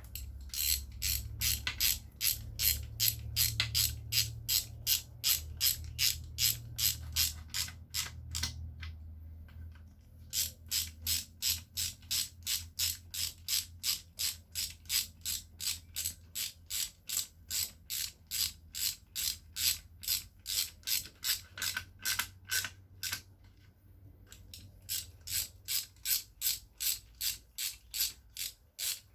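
Hand socket ratchet clicking steadily, about four clicks a second, as bolts are run down on the engine. The clicking comes in three runs, pausing briefly twice as the ratchet moves to the next bolt.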